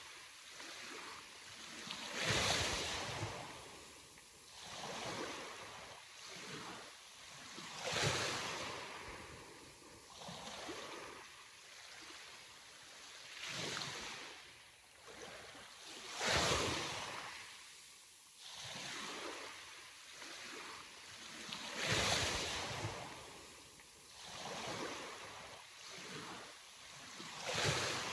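Sea waves breaking: a loud surge of surf roughly every five to six seconds, with quieter wash and hiss between.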